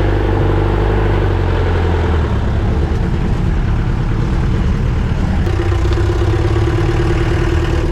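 Off-road jeep engine running steadily under load as the jeep climbs a rough track in four-wheel drive and low gear.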